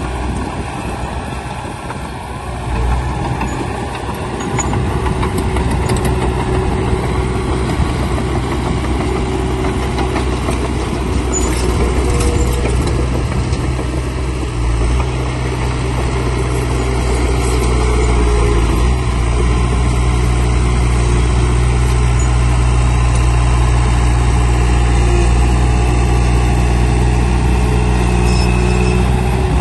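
Heavy diesel engine of earthmoving machinery running steadily under load, getting louder a few seconds in and again about halfway through.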